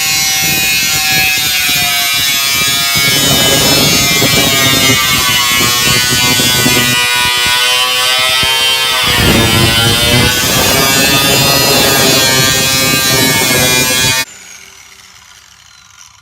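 Handheld rotary power tool cutting a lawnmower hood: a loud, steady motor whine that sags in pitch under load about nine seconds in, then switches off near the end and winds down.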